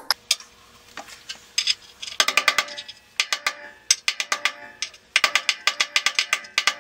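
Hammer tapping a socket to drive a wheel bearing into a dirt bike's spoked front hub: quick runs of sharp metallic taps, several a second, each with a short ring, starting about two seconds in.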